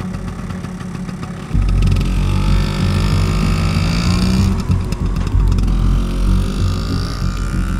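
Motor scooter engine revving as the scooter pulls away, jumping suddenly louder about a second and a half in, its pitch rising as it speeds up.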